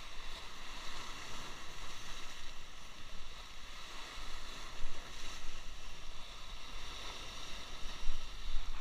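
Sea waves breaking and washing over shoreline rocks in rough water, surging louder about five seconds in and again near the end.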